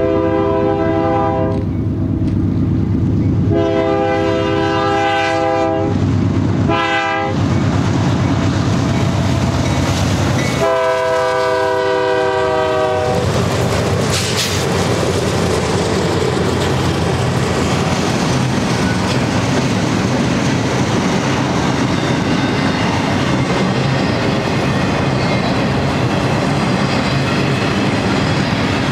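Freight locomotive air horn sounding the grade-crossing signal: two long blasts, a short one and a final long one. From about halfway through, the double-stack container train rolls past with steady wheel rumble and clickety-clack over the rail joints.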